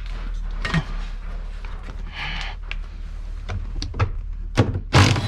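A few knocks and clunks with a short scrape from hand work on a car seat and its fittings, the loudest knock near the end, over a steady low hum.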